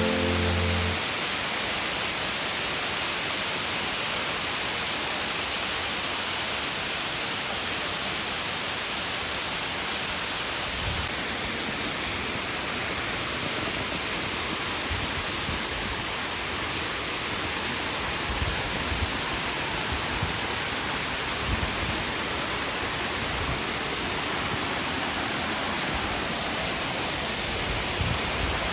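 Ryūsō-ga-taki waterfall: a steady rush of falling water, with a few faint low thumps in the second half.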